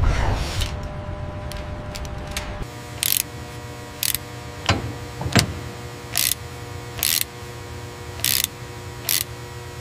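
A low rumble, then from about three seconds in a ratchet wrench clicking in six short bursts, with a couple of sharp metal ticks between them, over a steady machine hum.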